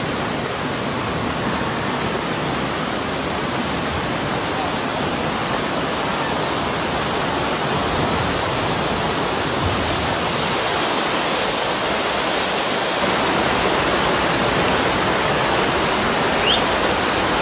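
Fast-flowing floodwater rushing through a street: a loud, steady rush of water.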